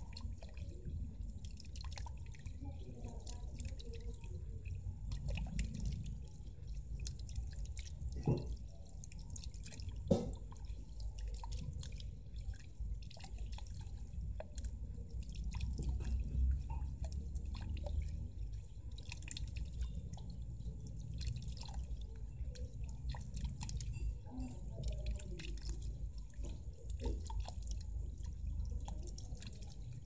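Small solar-powered fountain jet splashing and dripping back into a shallow planted pool, a steady sound of falling water with two sharper splashes about a third of the way in.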